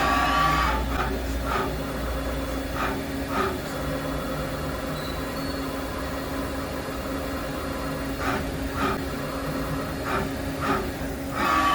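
Daewoo DMV4020 CNC vertical machining center running: a steady hum with a constant tone, broken by short hissing bursts that come in pairs about half a second apart, with longer louder bursts at the start and near the end.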